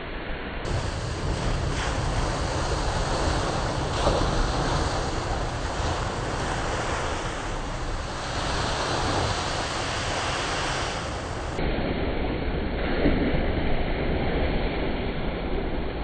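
Heavy ocean surf breaking against a rock ledge, a steady rushing crash with spray, swelling louder as each wave hits, the biggest about four seconds in and again near the end.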